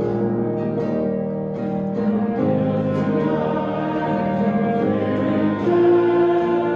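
Music: voices singing a song over plucked-string accompaniment.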